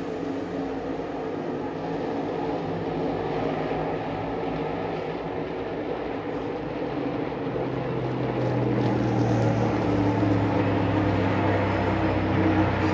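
NASCAR Cup Series stock cars' V8 engines running on the track: a steady drone that grows louder about eight seconds in.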